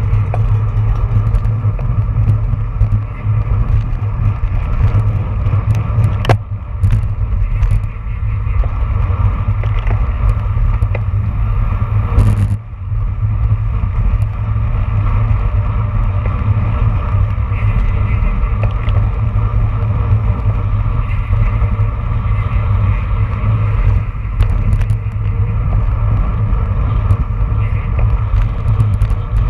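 Wind rushing over a handlebar-mounted action camera's microphone as a road bike races in a pack at about 20 to 25 mph, a loud, steady low rumble. A few sharp knocks cut through it, the loudest about twelve seconds in.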